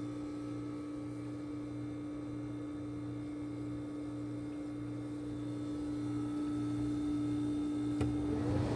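1979 Friedrich window air conditioner running with its fan on low: a steady hum with very little fan noise. A click comes near the end, and then a rush of airflow starts to build.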